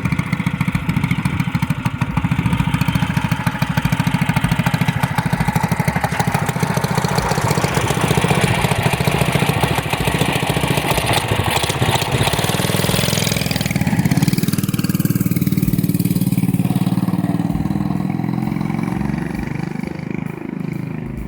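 Coleman CT100U mini bike's 212cc single-cylinder four-stroke engine running on light throttle while being broken in on a new billet connecting rod and flat-top piston. About two-thirds of the way through the revs drop, and near the end it winds down and gets quieter.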